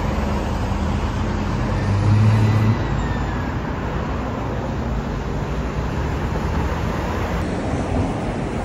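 City street traffic: steady road noise of passing cars and buses, with a louder low engine hum about two seconds in.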